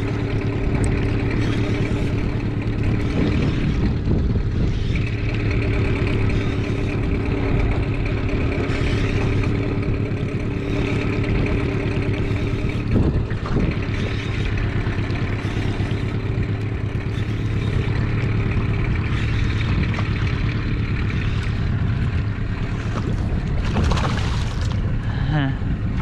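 Small outboard motor on an aluminium tinny running steadily while trolling, a constant hum that holds one pitch throughout.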